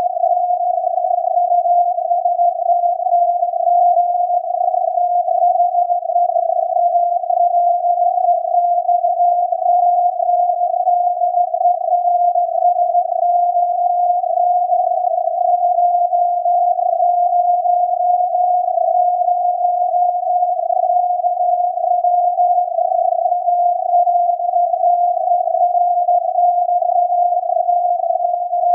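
Alexanderson alternator's 17.2 kHz VLF carrier received on a software-defined radio and heard as an unbroken CW tone near 700 Hz inside a narrow band of hiss, wavering slightly in pitch. No keying gaps are heard.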